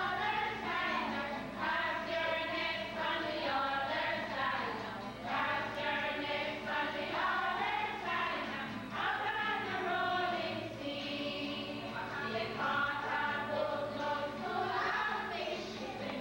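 A group of children and young people singing a song together.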